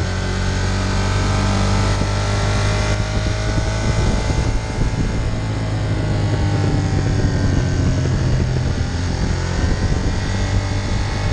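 Ducati Monster 1200's L-twin engine running under way, its pitch drifting gently up and down with the throttle through the bends, over steady wind noise.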